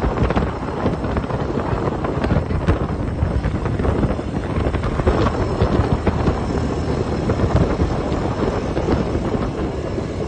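Wind buffeting the microphone over surf washing onto a pebble beach, a steady rushing noise with many small crackles.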